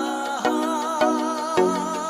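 Background music: a wavering melody over a steady beat of about two strikes a second.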